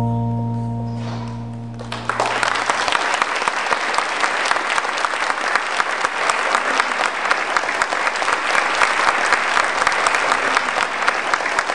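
The song's final chord is held and fades out, and a theatre audience starts applauding about two seconds in, clapping steadily through the rest.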